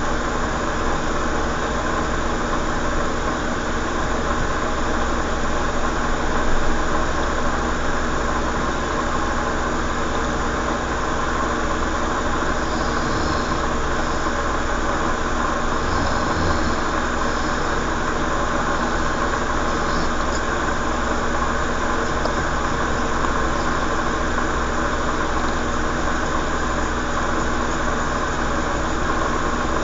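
Steady mechanical hum of a motor running, unchanging throughout, with a few faint brief high sounds around the middle.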